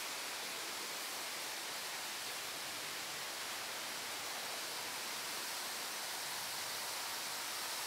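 Steady, even hiss of background noise, with no distinct sounds in it.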